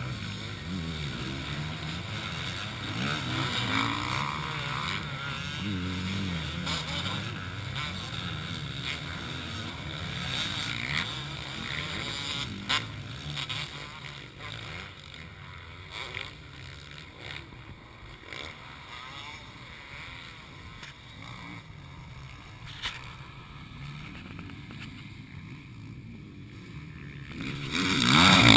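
Motocross bikes racing around a dirt track, their engines revving up and falling away as they take the corners and jumps. Near the end one bike comes close and gets much louder.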